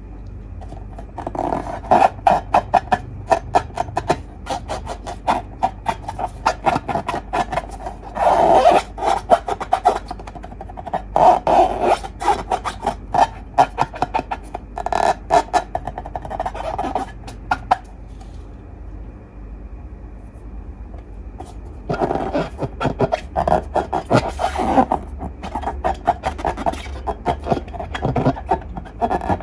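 Slime being squished and worked by hand: rapid sticky clicks and crackles in uneven bursts, easing off for a few seconds about two-thirds through before starting again.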